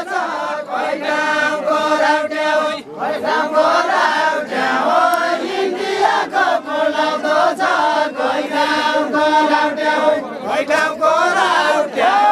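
A group of voices singing a Deuda folk song together, chanting in long held phrases with short breaths between them.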